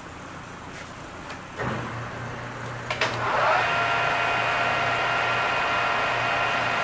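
Engine lathe starting up: the motor comes on with a low hum about a second and a half in, then after a couple of clicks near three seconds the spindle spins up with a rising whine and settles into a steady running whine of the headstock.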